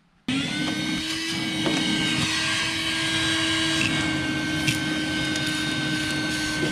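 Shop vacuum starting about a third of a second in and running steadily, its motor whine rising briefly and then holding, while the hose sucks up rust flakes and debris from around a car's fuel pump access hole.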